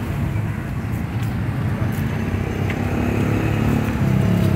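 Motor vehicle engines running close by in road traffic: a steady low engine hum that grows louder near the end.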